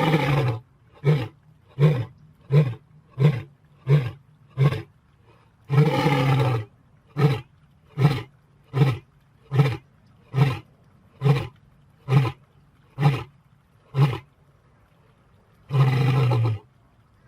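Lion roaring in bouts: a long, full roar followed by a run of short grunting roars about 0.7 s apart. The pattern comes round three times, with long roars at the start, about six seconds in and near the end.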